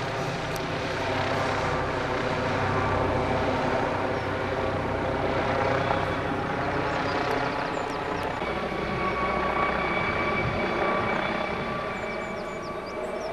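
Police helicopter flying low overhead: the steady beat of the rotor together with the whine of the turbine. A clearer, higher whine comes in about eight seconds in, and the sound eases slightly near the end.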